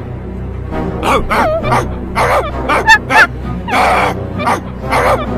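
Small dog yapping: a quick run of about ten short, yelping barks that bend up and down in pitch, starting about a second in, over background music.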